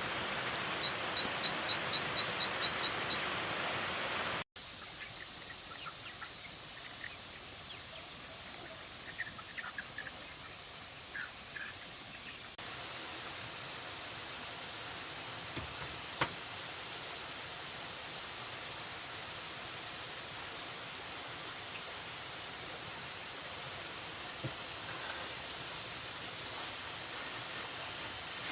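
Outdoor ambience: a steady hiss with a thin high whine over it. About a second in comes a quick run of about ten short, high chirps, about four a second, and a few fainter chirps follow later.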